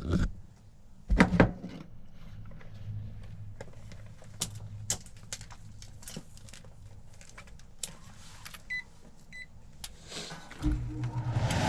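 Scattered clicks and knocks of handling, two short electronic beeps about nine seconds in, then near the end a package air-conditioning unit starts up: a hum followed by the steady rush of its fan.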